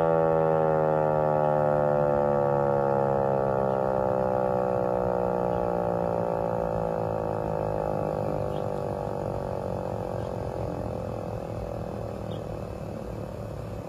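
Vixen Horns VXS-1200M hand-crank siren winding down: its wail slowly falls in pitch and fades as the rotor coasts after cranking stops.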